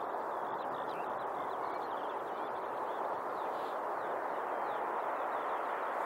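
Small birds singing, many short chirps and trills, over a steady rushing background noise that grows slightly louder near the end.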